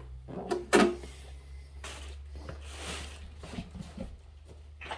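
Handling noises from unpacking a pressure washer: a sharp knock just under a second in, then light rustling and small clicks as parts are moved in the packaging.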